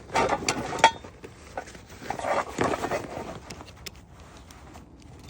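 A canvas bag being handled and rustled, with a short metallic clink of cookware about a second in.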